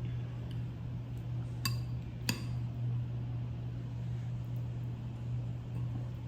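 Two clinks, the second louder, of a utensil striking a pot or dish and ringing briefly, over a steady low hum.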